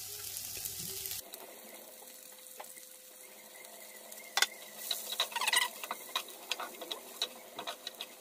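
Chopped cabbage sizzling in hot oil in a frying pan, with scattered clicks and clacks of a wooden spoon stirring it against the pan. The sizzle drops quieter about a second in.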